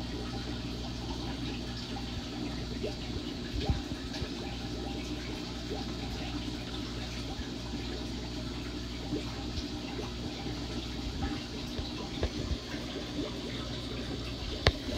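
Aquarium water churning and bubbling steadily from air-driven sponge filters, over a steady low hum. A light knock comes about four seconds in and another near the end.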